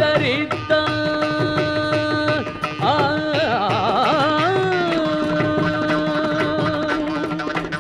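Tamil devotional song to Ganesha: long held melodic notes with a wavering, ornamented run about three seconds in, over continuous drum percussion.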